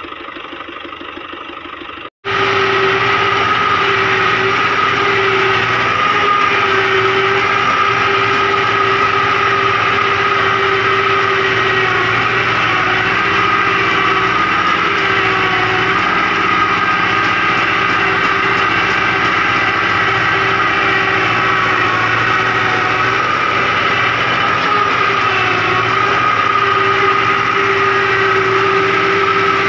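Fiat 640 tractor engine running steadily while pulling a rotavator through the field, heard from the driver's seat, with a strong steady high tone over the engine note. It comes in abruptly about two seconds in, after a couple of seconds of quieter sound.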